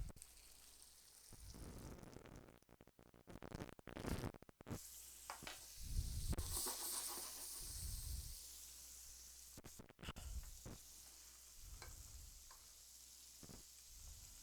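Chicken frying in butter in a pan, a faint sizzle that swells midway, with a few clicks and knocks, likely a utensil against the pan.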